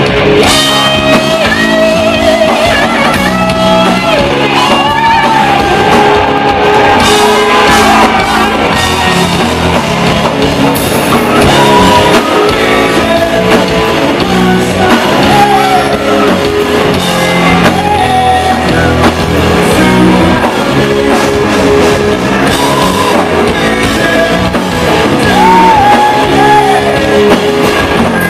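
Southern rock band playing live and loud: electric guitars, bass guitar and drums, with a male lead singer's voice over them.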